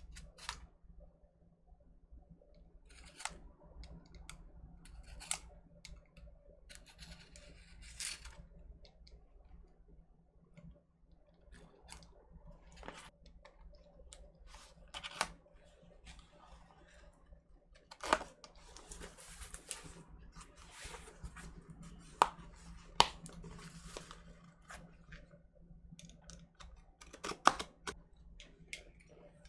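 Box cutter slicing through packing tape on a cardboard shipping box: scattered scraping, tearing and rustling, broken by a few sharp clicks.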